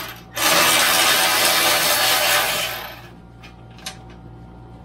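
Milwaukee cordless ratchet spinning out a bolt on the exhaust bracket. It stops briefly at the start, runs again for about two and a half seconds, then stops, followed by a few faint clicks.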